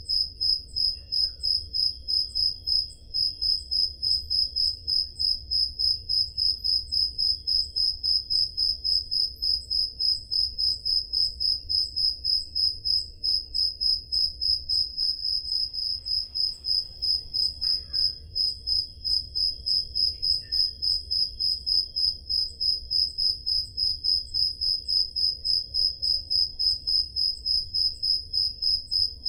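Crickets chirping on a summer night: one loud, very regular chirp repeating about two to three times a second, with fainter crickets chirping behind it.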